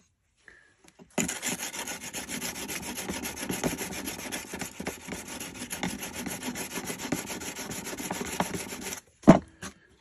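Silicon-carbide (carborundum) sharpening stone of about 400 grit rubbed back and forth on the flat steel side of a cleaver blade, making a steady gritty scraping from about a second in until near the end. A single sharp knock follows just before the end.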